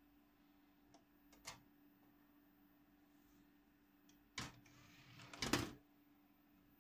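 Asus DVD drive's tray closing with a Windows 7 disc on it: a sharp click, a short sliding whir, then a louder clunk as it shuts, about four and a half to five and a half seconds in. A few light clicks about a second and a half in as the disc is set down, over a steady low hum.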